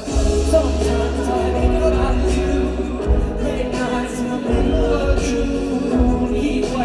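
Live pop band playing with singing over a heavy, steady bass, recorded from the audience at a loud concert.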